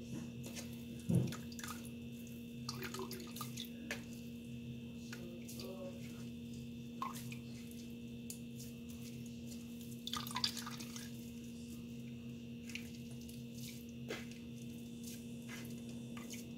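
Carrot juice dripping from pressed pulp in a mesh sieve into a plastic measuring jug, with scattered faint clicks and squelches as the pulp is worked. The loudest of these come about a second in and again around ten seconds in, over a steady low hum.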